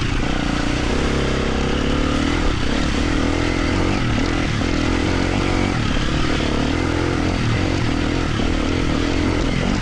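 250 cc four-stroke dirt bike engine running steadily, its pitch rising and falling a little with the throttle.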